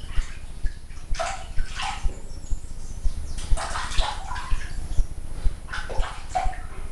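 Water splashing and sloshing in a plastic basin as a small dog is washed by hand, in repeated short bursts.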